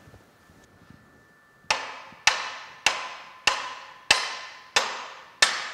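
Seven evenly spaced hammer blows on metal, a little under two a second, each with a short ringing tail: a part of the boring mill's saddle being driven into place from the back end.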